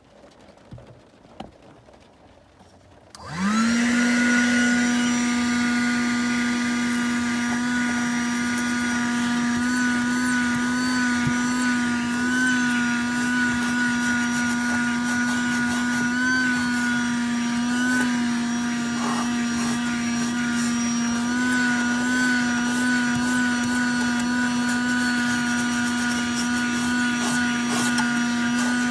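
A Sakura 12 V 120 W wet and dry car vacuum cleaner is switched on about three seconds in. Its motor spins up quickly to a steady high whine, which wavers slightly now and then as it runs on.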